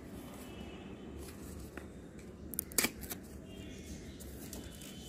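Handling of a spot-on flea and tick pipette's card-and-plastic pack: light rustling, with a couple of sharp plastic clicks a little under three seconds in as the pipette is taken out.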